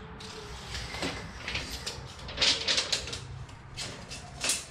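Wood scraping and knocking as a 2x4 is handled and set into the bottom of a window's rough opening, in a string of irregular scrapes and knocks.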